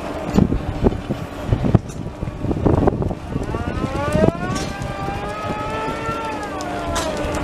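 A small articulated loader with pallet forks runs its engine with a steady hum and scattered knocks and clunks. Over about three seconds in the second half, a long pitched sound rises and then falls over the engine.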